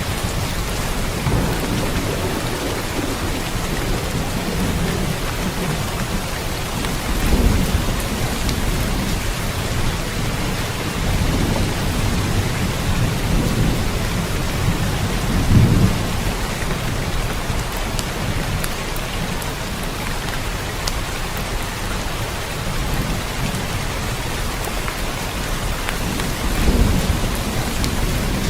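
Steady rain with low rumbles of thunder, swelling three times: a quarter of the way in, about halfway, and near the end.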